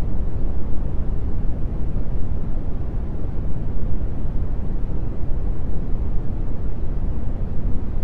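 Brown noise: a steady, deep hiss with most of its energy in the low end and little in the highs, without tones or changes.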